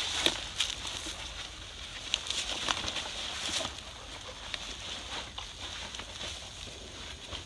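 Light rustling and scuffing of a backpack being shouldered and its shoulder straps adjusted, with a few short clicks and scrapes in the first few seconds over a steady faint hiss.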